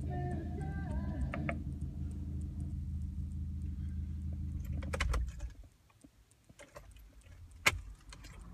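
Music from the car radio stops about a second and a half in, leaving a low steady rumble. About five seconds in, a few clicks come and the rumble stops, followed by scattered light clicks and one sharp click near the end.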